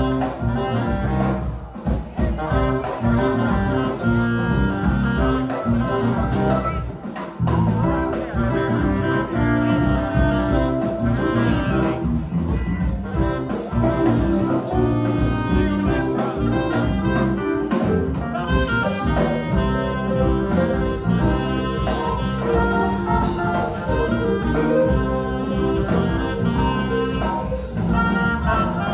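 Live band playing on stage, with electric guitars among the instruments, heard from the audience floor of a club.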